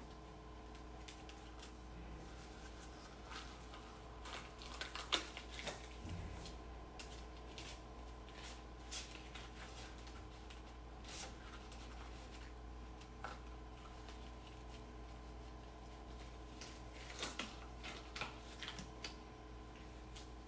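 Sterile gloves and their paper wrapper being opened and pulled on: scattered crinkling and small snapping rustles, busiest about four to six seconds in and again near the end, over a steady faint electrical hum.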